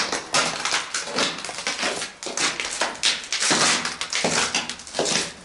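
Footsteps crunching and scuffing on grit and debris over a concrete floor in a small concrete room, an irregular run of short scrapes and crunches.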